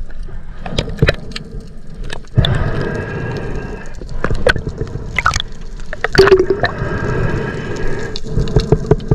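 Water gurgling and moving around a submerged camera as a diver goes under, with many scattered sharp clicks.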